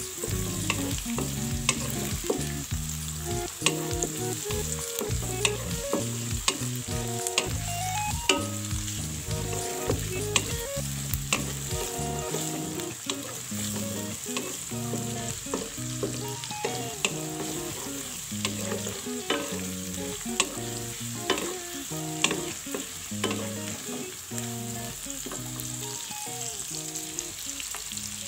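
Sliced shallots, garlic and chillies sizzling in hot oil in a wok while a spatula stirs them, with frequent sharp clicks and scrapes of the spatula against the pan. A quiet tune of held notes changing pitch plays underneath.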